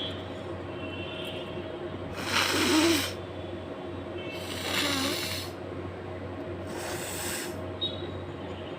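A person forcefully blowing her nose three times. Each blow is a harsh rush of air about a second long; the first is the loudest and the last is shorter.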